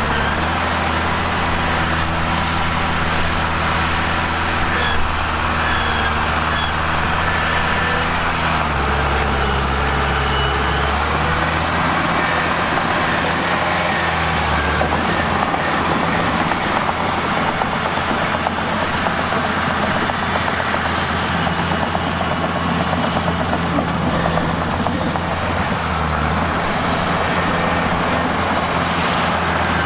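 Mitsubishi bulldozer's diesel engine running steadily with heavy mechanical noise over it; the engine note shifts and grows louder about eight seconds in, then settles again a few seconds later.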